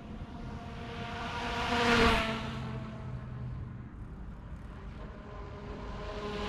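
An e-bike with a 1000 W, 48 V Voilamart front hub motor passes close by. Motor whine and tyre noise rise to a peak about two seconds in and then fade, and start rising again near the end as it comes back.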